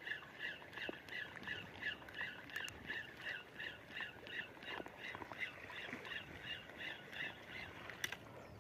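Old spinning reel squeaking with each turn as the lure is reeled in: a short two-toned squeak repeating about three to four times a second, stopping near the end. The squeak comes from the reel's age and wear.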